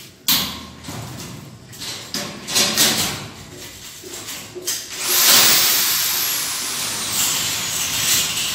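Scattered knocks and scrapes of light steel ceiling framing being handled, then about five seconds in a corded power drill starts drilling into the overhead metal frame, its high whine falling slowly in pitch for about three seconds.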